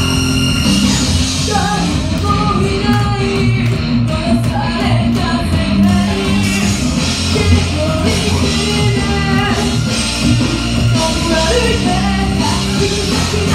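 Loud rock-style music played through a club PA, with a woman singing into a handheld microphone over it; her voice comes in about two seconds in.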